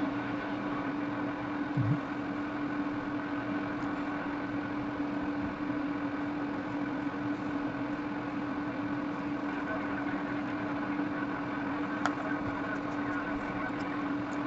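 Steady machine hum with one strong low tone over a hiss, from bench equipment running during circuit-board soldering. A brief low thud comes about two seconds in and a faint tick near twelve seconds.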